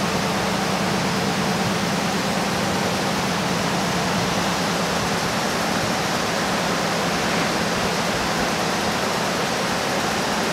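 Steady, even rushing noise with a low hum underneath, holding level without change.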